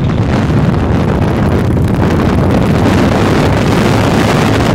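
Heavy wind noise on the microphone over the steady low drone of a Victory Highball's V-twin engine cruising at road speed.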